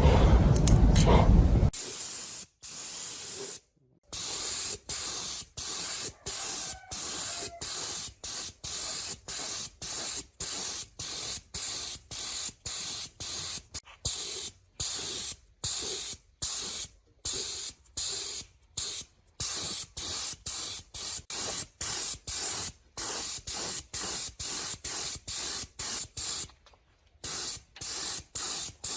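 Spray nozzle hissing in short, rapid bursts, about two a second, with a couple of longer pauses. A louder low rumble fills the first two seconds and cuts off suddenly.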